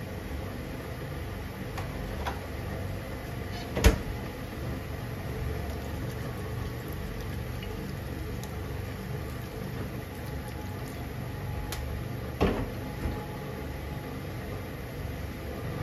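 Spaghetti, tuna and onion simmering in a frying pan over a steady low rumble, with the tongs knocking sharply against the pan about four seconds in and again about twelve seconds in.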